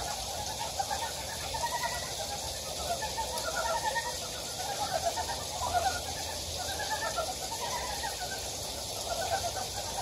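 Chorus of many frogs calling at once: overlapping short, rattling croaks, each a quick run of pulses, one after another without a break. It is a breeding chorus.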